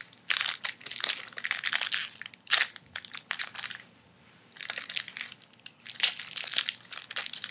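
Foil wrapper of a 2007 Bowman Chrome baseball card pack crinkling and crackling as it is handled and torn open, with a short quiet pause about halfway through.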